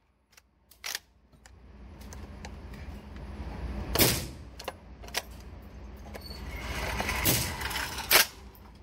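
Metallic clicks and clacks from a 12-gauge bullpup shotgun's action being worked by hand after it failed to feed the next slug, with rustling handling noise. There are sharp clacks about four seconds in, the loudest of them, and again just after eight seconds as the charging handle is worked.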